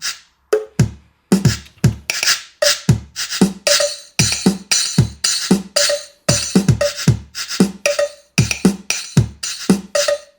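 Linn LM-1 drum machine playing a sequenced beat from its sampled drum sounds: steady kicks that drop in pitch, bright snappy hits and short pitched blips. The hi-hat voices are still silent because of the machine's fault.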